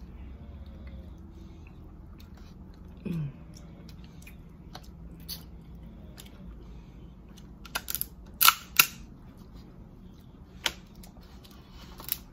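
Cooked Dungeness crab shell being cracked and snapped apart by hand: scattered light clicks, then a few loud sharp cracks about eight seconds in, and more near the end.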